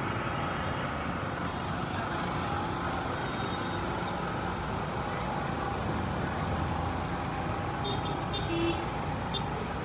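Steady roadside traffic noise: vehicle engines running and passing, with a few short high beeps near the end.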